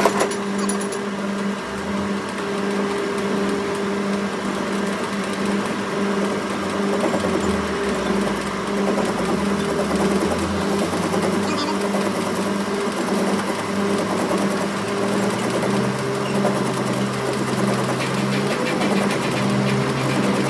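A machine's motor running steadily with a constant hum, after a sharp click at the start.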